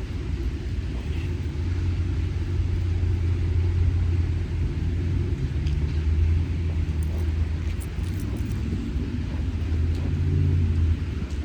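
A steady low rumble that swells and eases over the seconds, with a faint hiss above it.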